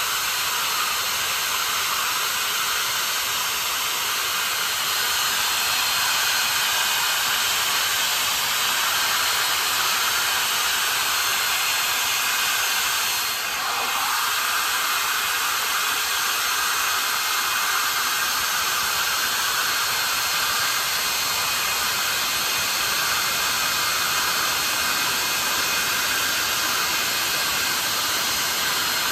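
Westinghouse J34 axial-flow turbojet running steadily at a constant speed: a loud, even rush of air with a faint high whine, most of the sound in the upper range. The level dips briefly about halfway through.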